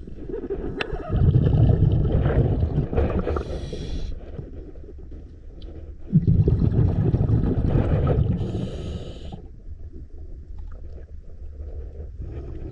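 Scuba diver breathing through a regulator underwater: two breath cycles, each a long rumble of exhaled bubbles followed by a short hiss from the regulator.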